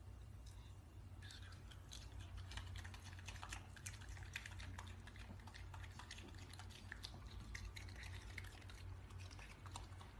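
Raccoon chewing fruit: faint, quick, irregular wet clicking and smacking that starts about a second in, over a low steady hum.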